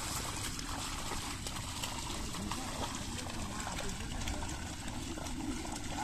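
Mud and water sloshing and trickling as a pair of bullocks drag a wooden leveling board through a flooded paddy field, over a steady low rumble.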